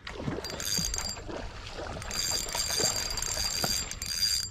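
Spinning fishing reel being cranked in stretches to bring in a hooked fish, with a steady high whine while the handle turns and faint knocks in between.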